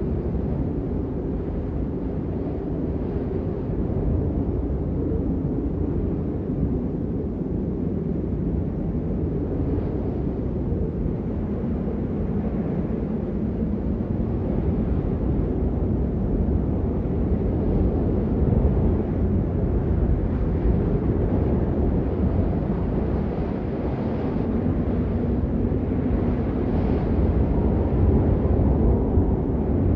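Blizzard wind blowing hard and steadily, a deep rumbling rush that swells a little in gusts, stronger toward the end.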